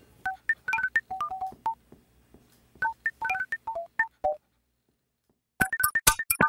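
Electronic music made of short bleeping tones at a few fixed pitches, like phone-keypad beeps. Two short runs of beeps are followed by a pause of about a second, then a faster run with sharp clicks starts near the end.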